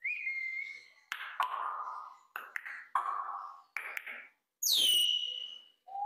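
Congo African grey parrot whistling and calling: a steady whistle at the start, a few short harsh calls with clicks in the middle, then a whistle falling in pitch near the end.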